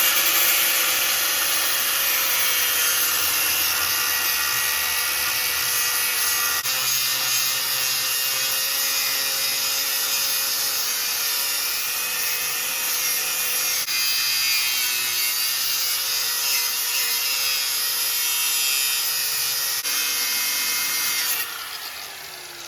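Angle grinder cutting into a stuck suspension bolt, running steadily with a held whine. Near the end it is let off and spins down with a falling pitch.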